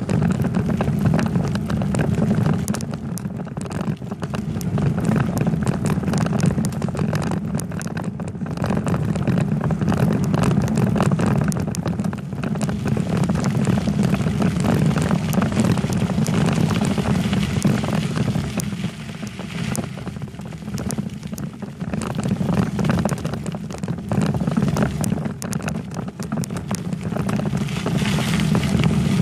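Steady wind and road noise on a bicycle-mounted camera's microphone while riding, a low rumble with a dense crackle of small clicks and rattles throughout.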